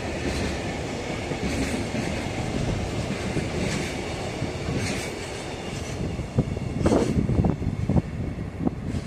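Freight train of Koki container flat wagons rolling past, wheels clattering over rail joints in a steady rumble. There are louder, sharper knocks about seven to eight seconds in.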